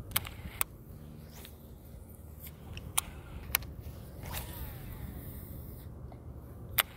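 A few sharp clicks and taps from a baitcasting rod and reel being handled in a kayak, with a brief scrape about four seconds in, over a faint low steady hum.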